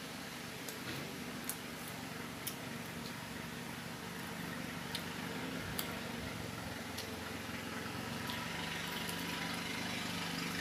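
A steady mechanical hum with a low drone, growing slightly louder. Over it, a few sharp crunchy clicks from people chewing crisp fried shrimp toast.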